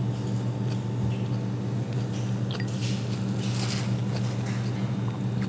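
Spoons clinking and scraping in ceramic soup bowls and soft sips of soup, over a steady low hum.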